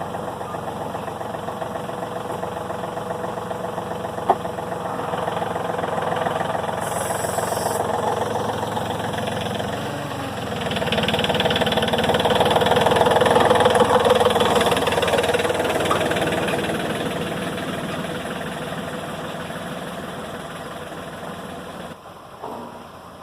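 Engine running steadily, picking up speed and getting louder about halfway through, then easing back down. A single sharp click about four seconds in; the sound cuts off just before the end.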